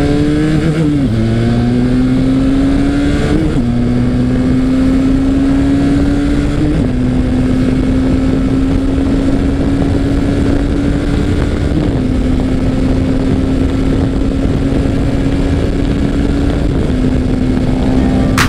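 Benelli TRK 502's 500cc parallel-twin engine accelerating hard through the gears on a top-speed run: the engine note climbs in each gear and drops at five upshifts, the gears lasting longer as speed builds. Steady wind rush runs under the engine.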